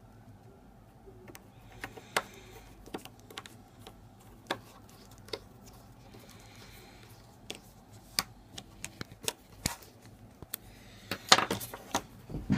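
Irregular small clicks and taps of a plastic key fob casing being handled, with a quick, louder run of clicks near the end.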